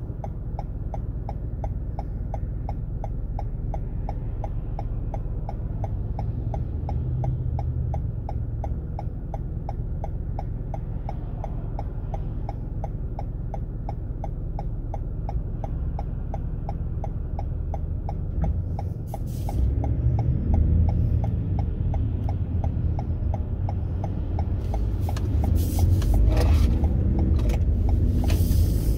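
A car's turn-signal indicator ticking steadily inside the cabin over a low engine idle while the car waits to turn. About 19 seconds in the ticking stops, and engine and road noise rise as the car pulls away and drives off.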